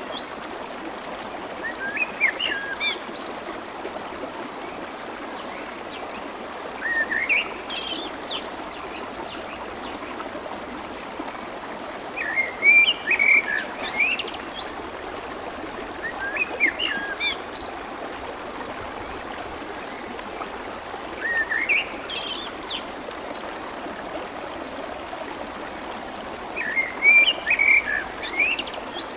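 Clear water babbling steadily along a stream, with a small songbird chirping in short, quick phrases that come back about every four to five seconds.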